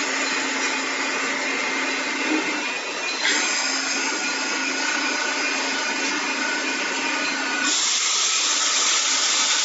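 CNC milling machine running, a steady whir and hiss of the spindle and cutting. The sound changes abruptly about three seconds in, and again near the end, when a low hum drops out and the hiss grows sharper.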